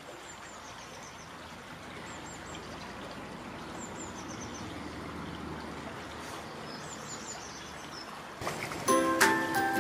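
A river's steady rushing flow, with a small bird's high, thin chirps in quick runs of three or four, heard about four times. Near the end, music with bell-like mallet notes comes in loudly.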